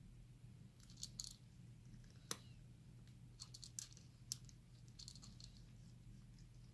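A cat eating, with faint scattered clicks and crunches of chewing in small clusters, over a steady low hum.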